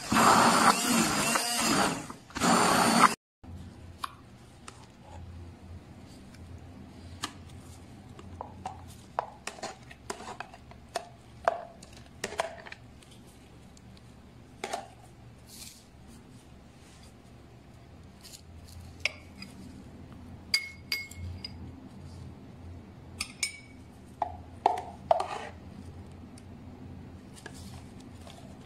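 Stick blender running in a jug of thick garlic cream for about three seconds, its pitch wavering under the load, then cutting off. Afterwards, scattered light clinks and scrapes of a metal spoon against a ceramic bowl.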